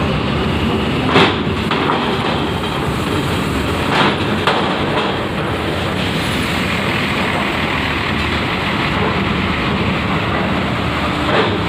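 Coach driving off a ferry across the steel loading ramp and grated deck, its diesel engine running as it passes close by. Wheels rumble over the metal plates, with a few sharp clanks about a second in, twice around four seconds in, and once near the end.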